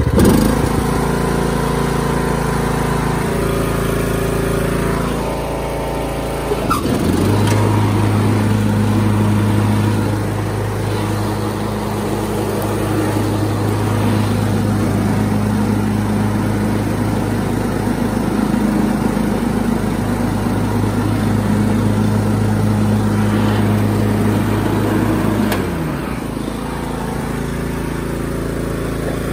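Craftsman T110 riding lawn mower's engine running as the tractor drives across the grass. A louder steady drone sets in about seven seconds in and falls away with a drop in pitch near the end.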